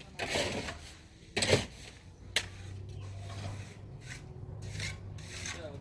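Short scraping or rubbing noises and a sharp knock about one and a half seconds in, followed by a steady low hum.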